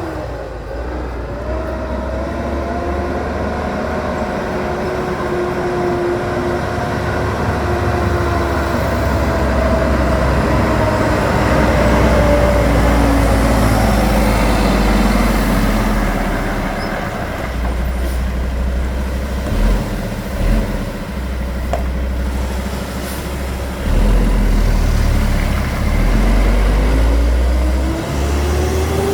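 Concrete mixer truck's diesel engine running close by as it manoeuvres, with a heavy low rumble. Its engine note slowly falls over the first half and rises again near the end.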